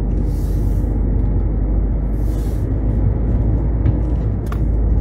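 Car cabin noise while driving: a steady engine and road rumble, with two short hissing swells about half a second and two seconds in, and a brief sharp tick near the end.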